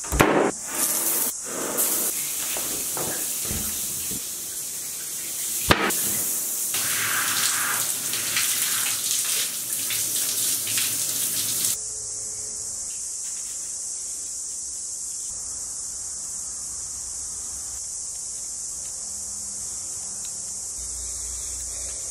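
A door latch clicks, then running water hisses for about twelve seconds, with a sharp knock about six seconds in, and cuts off suddenly. A steady high hiss carries on behind it and alone afterwards.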